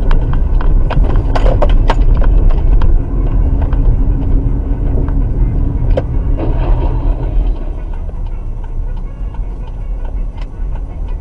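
Dashcam car's in-cabin driving noise: a steady low rumble of engine and tyres, with scattered clicks and knocks over the first few seconds and a few more later.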